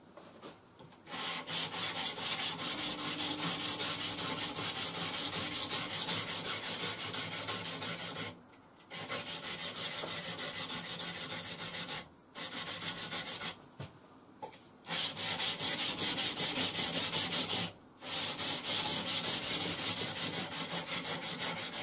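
Puukko knife blade with a scandi grind being stroked quickly back and forth on a strip of worn 120-grit abrasive grinder belt: a rasping scrape of rapid strokes in about five runs broken by short pauses.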